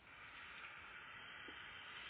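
Faint steady static hiss from a Cobra CB radio's speaker, starting with a small click.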